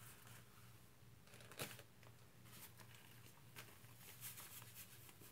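Faint handling sounds from rubber-gloved hands: one sharp tap about a second and a half in, then a scatter of light clicks and crinkles.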